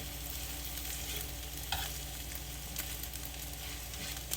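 Beaten eggs with onions sizzling steadily in olive oil in a skillet, with a few short scrapes of a utensil in the pan.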